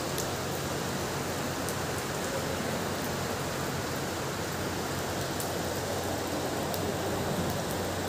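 Steady rain falling on a flooded paved road and puddles, a continuous even hiss with a few faint sharp drop ticks.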